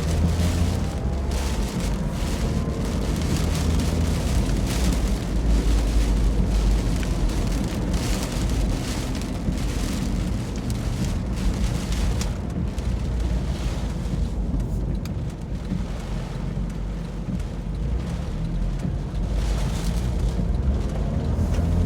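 Strong storm wind gusting and buffeting the microphone with a heavy low rumble, over a steady hiss of rain. A faint rising whine sounds near the start and again near the end.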